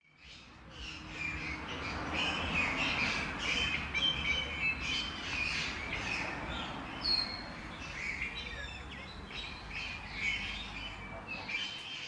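Birds calling in trees: many short chirps and squawks overlapping, over a steady low background noise.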